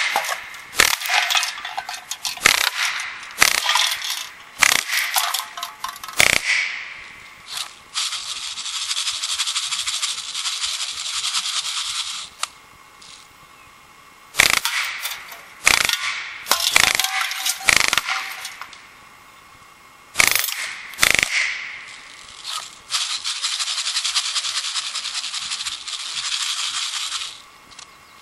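Umarex Steel Storm CO2 BB pistol firing in quick volleys of sharp cracks, knocking cans and targets off a sawhorse. Twice between volleys there is a steady rasping hiss of about four seconds.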